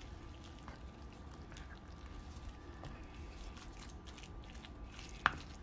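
Faint wet squishing as a salmon croquette mixture is stirred and mashed in a bowl, with one sharp click near the end.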